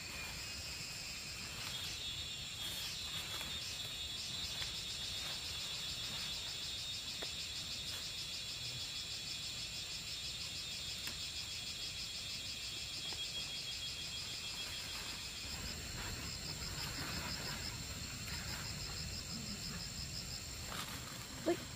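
Insects trilling: a steady high buzz throughout, with a rapid pulsing trill and a second lower trill over it that fade out in the last few seconds.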